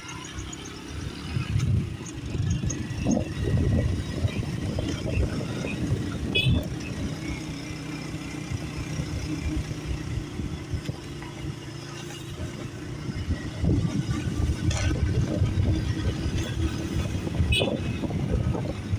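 A motor vehicle's engine running steadily, a low hum over a fluctuating rumble, with two short, sharp high sounds, one about a third of the way in and one near the end.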